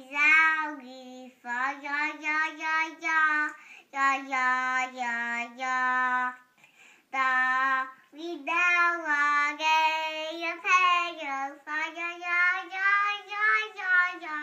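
A young child singing a song without accompaniment, in short phrases of held notes, with a brief break about halfway through.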